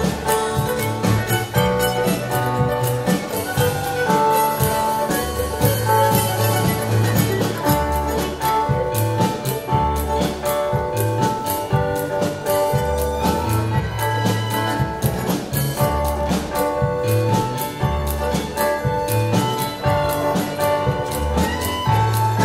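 Live contra dance band playing a tune with a steady beat and a bass line that moves every second or two.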